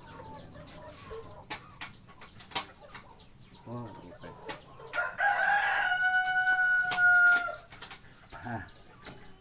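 A coconut-leaf reed for a tarompet being test-blown: one steady high tone, falling slightly, lasting about two and a half seconds from about five seconds in. Small clicks from handling the reed come before it.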